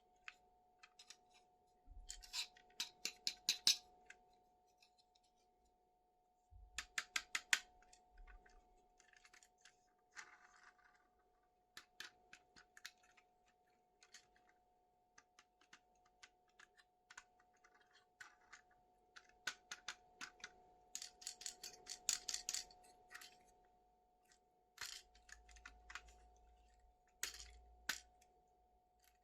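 Hands unpacking toys: quick runs of sharp clicks, ticks and scratchy rustles of plastic and cardboard packaging, in several bursts. A faint steady hum sits underneath.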